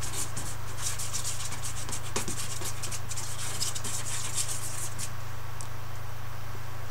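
Paintbrush scrubbing quick, scratchy strokes across the painting surface, several a second, stopping about five seconds in. A steady low hum runs underneath.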